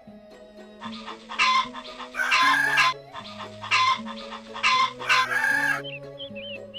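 Hens clucking and a rooster crowing over background music with a stepping bass line. The loud calls come in two matching rounds about three seconds apart.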